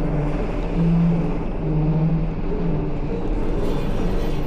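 A vehicle running, a steady low mechanical hum with a low tone that swells and fades.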